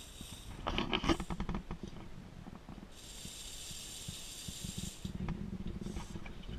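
Small electric motors and gears of a student-built assembly-line robot with a claw, made from perforated metal kit parts, running: a burst of clicking and rattling about a second in, a steady hiss in the middle, and a low motor hum near the end.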